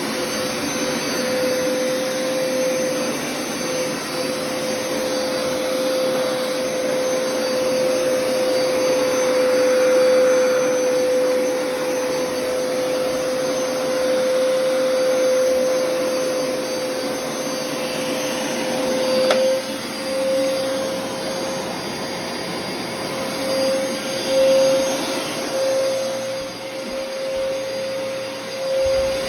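Vacuum cleaner motor running steadily with a constant whine, its level swelling and dipping a little, with a single short click about two-thirds of the way through.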